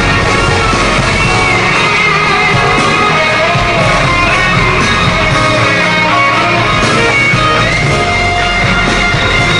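Loud live rock-style concert music with guitar from the stage, recorded from the audience.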